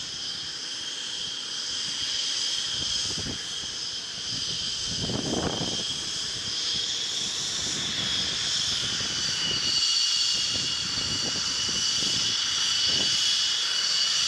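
Jet aircraft engine running with a steady high-pitched whine of several tones over a rushing noise, the pitch sagging slightly about halfway through. A brief low rumble comes about five seconds in.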